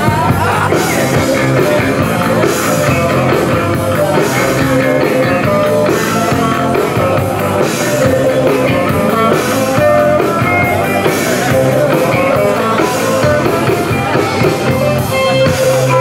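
Live rock band playing: electric guitars and drum kit with a steady beat of cymbal hits, heard from within the crowd through a camcorder's built-in microphone.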